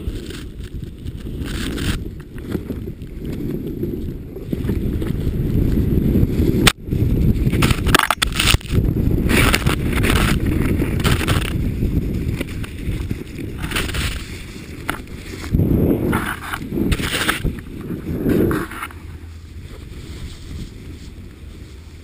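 Snowboard sliding through deep powder, with the rush of snow and wind on the camera's microphone and a few sharp knocks about a third of the way in. The rumble eases to a quieter, steadier slide for the last few seconds.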